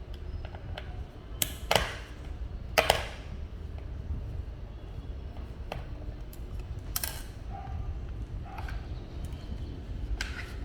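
Handling noises from the miner and tools being worked on: about five sharp clacks and short scrapes, spread out, over a low steady hum.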